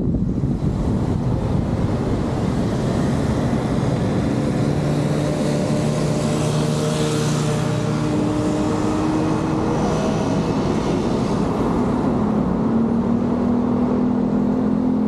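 City road traffic around a car in town, with a steady engine hum that shifts pitch a few times over the noise of tyres and passing vehicles.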